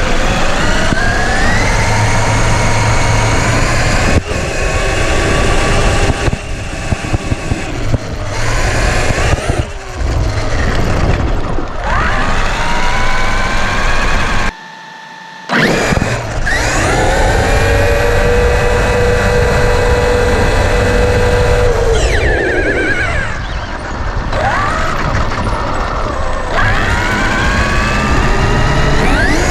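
Brushless electric motor and drivetrain of a Traxxas RC truck, heard from a camera mounted on the truck, whining up and down in pitch as it accelerates and lets off several times over rough ground. The sound drops out briefly about halfway through.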